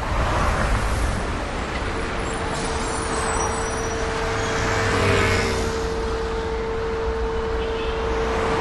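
City street traffic: a dense, even rush of passing vehicles, louder as one goes by about halfway through. A steady hum comes in about two seconds in and holds.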